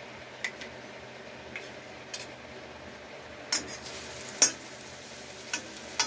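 Steel spatula clinking and scraping against an iron kadhai as vermicelli-coated potato nests shallow-fry, over a steady low sizzle of hot oil. About seven sharp clinks come at uneven intervals, the loudest a little past the middle.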